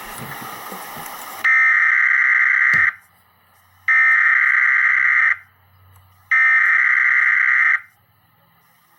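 Emergency Alert System SAME header: three harsh, screechy bursts of digital modem-like data, each about a second and a half long with about a second between them, after a brief hiss at the start. The bursts carry the alert's encoded warning code.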